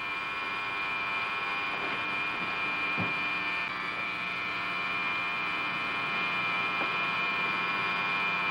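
Hidden motion-picture camera running, a steady whirring hum. A soft knock comes about three seconds in.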